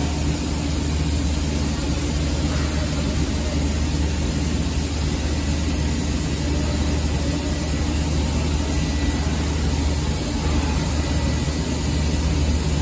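2013 Trumpf TruLaser 1030 CNC laser cutter running while cutting sheet metal: a steady low machine hum with an even hiss over it.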